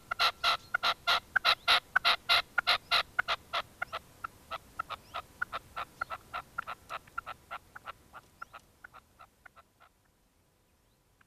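Red-legged partridge calling: a rapid run of short, repeated calls, about three or four a second. They are loudest at first, then grow fainter and further apart, and die out about ten seconds in.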